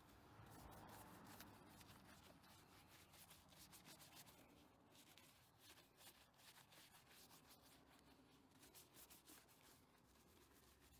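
Very faint scrubbing of a soft detailing brush working through snow foam on van paintwork and door seams.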